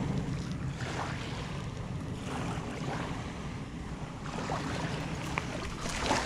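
Wind buffeting the microphone over gentle waves lapping at the shoreline, with a low hum underneath in the first couple of seconds.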